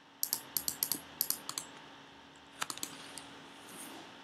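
Typing on a computer keyboard: a quick run of about a dozen keystrokes, then a few more taps a little past halfway.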